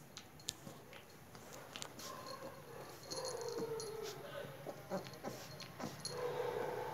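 Puppy whining in short calls, about three seconds in and again near the end, while it mouths and tugs a plush toy, with small clicks and rustles from the toy.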